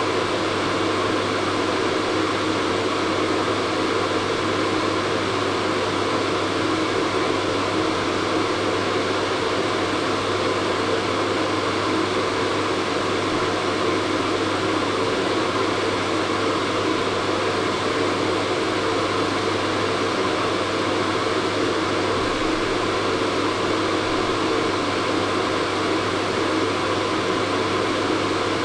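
Hair dryer running steadily: a constant airy blowing hiss over a low, even motor hum, with no change in speed.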